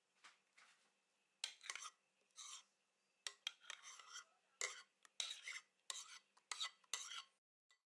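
A bowl of thick whipped cream and condensed milk being scraped and tipped out into a pot: about a dozen short scraping sounds. They start about one and a half seconds in and cut off suddenly near the end.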